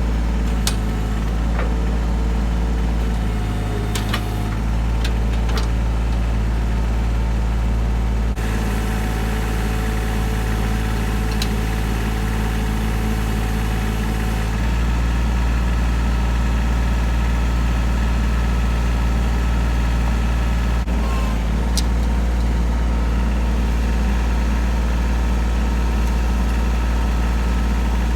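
An engine running steadily with a low drone, its note and load shifting several times, with a few light knocks over it.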